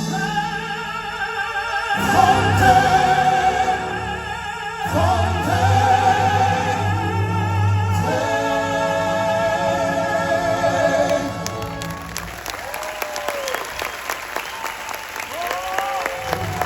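Operatic singing with wide vibrato over musical accompaniment, the final notes ending about eleven seconds in; audience applause follows.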